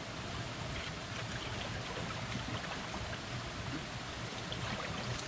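Creek water flowing in a steady rush, with faint scattered small ticks over it.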